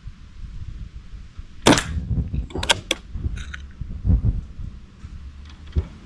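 Sharp cracks of an AirForceOne Trophy MKII CO2 air pistol being fired, two loud ones about a second apart with the first the loudest, then fainter clicks. Wind rumbles on the microphone underneath.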